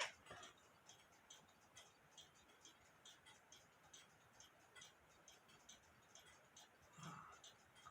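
Faint, steady ticking of a running clock, about three ticks a second, with a brief soft knock near the end.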